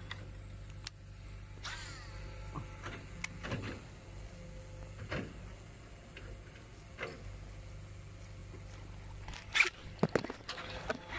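Faint handling of a baitcasting rod and reel during a cast and retrieve: scattered small clicks and short rustles over a low steady rumble. Near the end come a few sudden, louder knocks and rustles as the rod is jerked.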